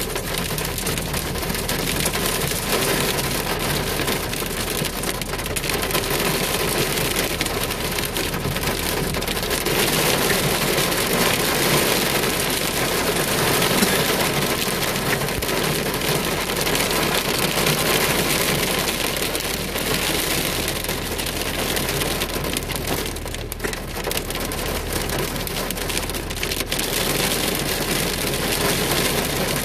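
Heavy rain pelting the car's roof and windshield, heard from inside the cabin as a steady dense patter.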